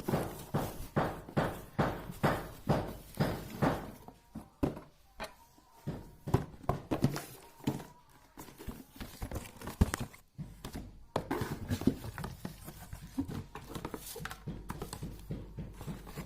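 A run of light knocks and clicks, about two or three a second at first, then sparser and irregular.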